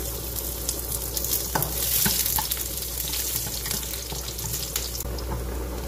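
Garlic frying in hot cooking oil: a steady sizzle, with a few light clicks of stirring.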